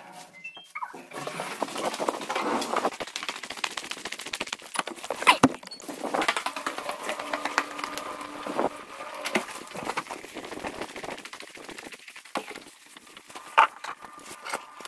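Footsteps and the clicks and knocks of handling as someone walks carrying the camera, with a few short rising tones right at the start.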